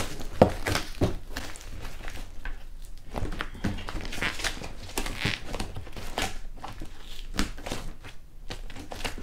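Packing tape being peeled and ripped off a cardboard box in a run of short, irregular tugs, with crinkling as the torn-off tape is crumpled in the hand. The tape is stuck on very well, so it comes away in bits.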